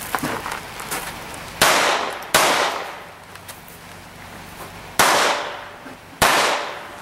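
Four handgun shots in two pairs, each with a trailing echo.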